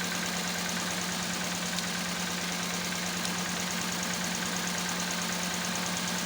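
Toyota Corolla four-cylinder engine idling unevenly with a misfire, one cylinder not firing. It gives a steady hum with fast, even ticking over it. The mechanic traces the misfire to that cylinder's ignition coil leaking current.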